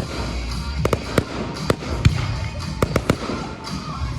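Fireworks bursting in an irregular series of sharp bangs, about ten of them, over music played on the show's sound system.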